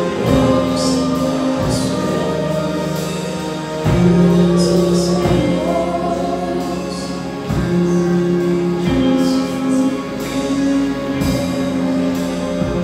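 A group of singers on microphones sings a slow worship song, amplified through the hall's PA, with long held notes.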